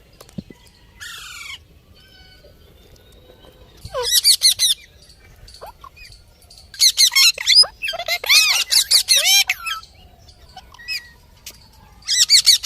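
Parrot calling in several bursts of rapid, high-pitched squawks and whistles that rise and fall quickly, with a single falling whistle about a second in and the longest run between about seven and nine and a half seconds.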